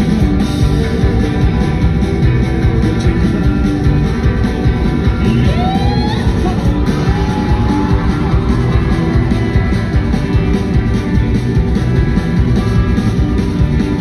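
Live country-rock band playing loud through a club PA: electric guitar, bass and drums, heard from the front of the stage.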